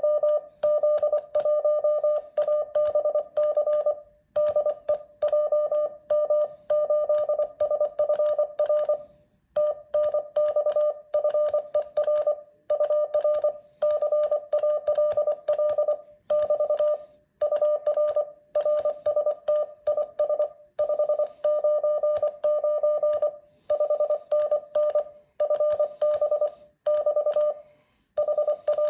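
Morse code keyed on a Begali Sculpture paddle: the transceiver's sidetone, a steady medium-pitched beep, sounds out rapid dits and dahs in word groups with short pauses between them, over the light clicking of the paddle levers. The sending is part of a typical CW contact, including 'TNX FER UR CALL BT'.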